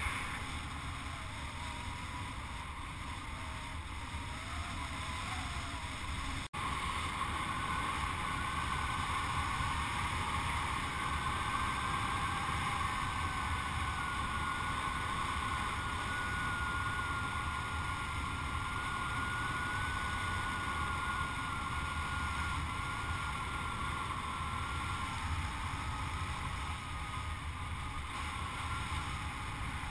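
Steady rush of airflow over a hang glider-mounted camera's microphone in flight, with a faint high whistle that wavers slightly in pitch through the middle. The sound cuts out for an instant about six seconds in.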